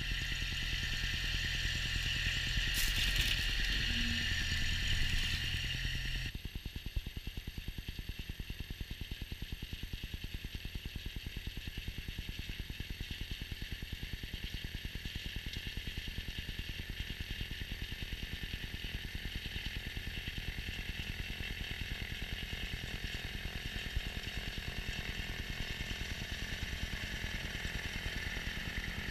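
Kubota B7610 compact tractor's three-cylinder diesel engine running while clearing snow. For the first six seconds it is louder, with a brief clatter about three seconds in. It then drops to a quieter, even, fast engine pulse.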